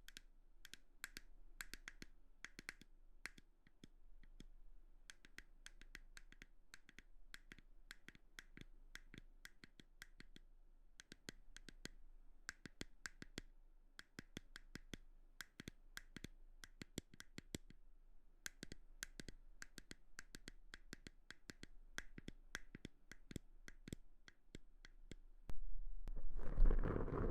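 Soft, irregular clicks and taps made close to the microphone, several a second, as ASMR trigger sounds. Near the end a louder scratchy rubbing starts.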